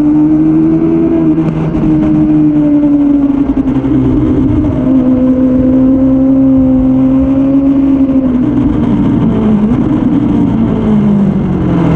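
Suzuki Bandit 600's air/oil-cooled inline-four engine running hard at high revs, heard from the tail of the bike while it is ridden on track. The note holds steady, dips slightly about four seconds in, then rises briefly and falls as the revs drop near the end.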